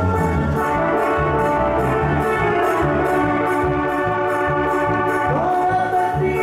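A band playing a corrido for dancing: a bass pulses on the beat under held horn-like melody lines, with steady cymbal ticks about two and a half times a second. A little past five seconds in, one note slides up.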